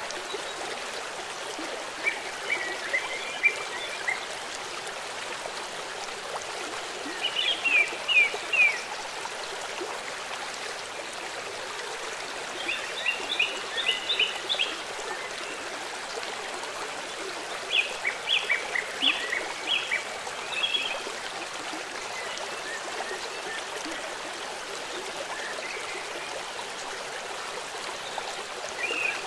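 A bird singing short phrases of quick high chirps, a phrase every four to five seconds, over a steady rushing hiss.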